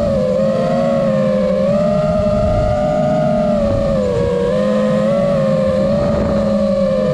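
Electric motors and propellers of an RC chase aircraft whining in flight, the pitch wavering gently up and down with throttle, over a rough low rumble of wind and prop wash.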